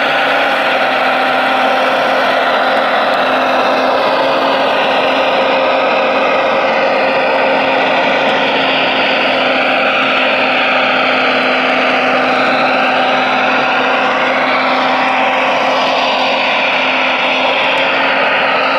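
Radio-controlled Liebherr 970 hydraulic model excavator running steadily while its grapple works a log, a constant machine drone with a higher whine that slowly wavers up and down in pitch as the hydraulics take load.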